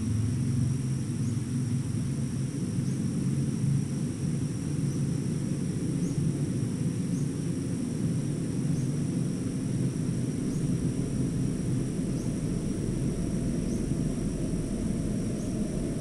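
Outdoor nature ambience: a steady low rumble under a continuous high-pitched insect drone, with faint chirps every second or two.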